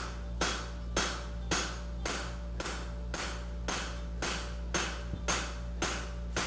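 Farrier's hand hammer striking a red-hot 1/2" x 1 1/4" steel horseshoe bar on the anvil in a steady rhythm, about two blows a second, each with a short metallic ring. The blows narrow the edge of the shoe. A steady low hum runs underneath.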